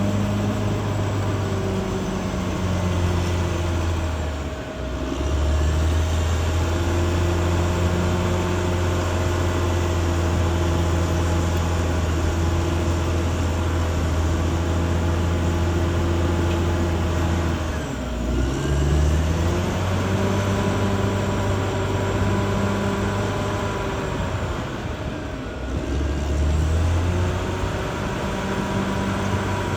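Caterpillar D6R XL bulldozer's diesel engine running steadily at working revs, its pitch sagging and recovering three times, about 5, 18 and 25 seconds in.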